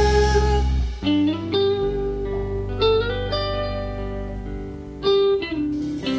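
Background pop music: an instrumental passage of guitar notes plucked and left ringing, with new notes struck every second or two.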